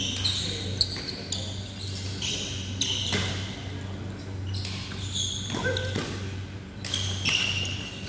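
Badminton rally in a large echoing hall: sharp smacks of rackets striking the shuttlecock several times, mixed with short squeaks of court shoes, over a steady low hum.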